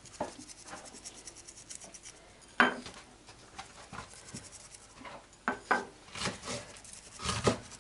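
Quiet kitchen handling sounds while seasoning is sprinkled by hand over raw chicken chops: faint rustling, and a few light sharp knocks of dishware, the clearest about two and a half seconds in and a cluster near the end.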